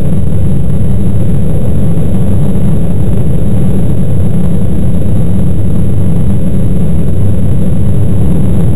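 Loud, steady low wind buffeting and propeller noise on the microphone of a camera riding on a homemade box-wing RC plane in flight, with a thin steady high whine above it.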